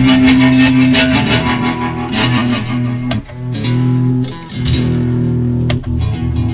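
Electric guitar played through a vacuum tube PA amplifier and a small effects box: notes ringing on, with new notes picked about once a second.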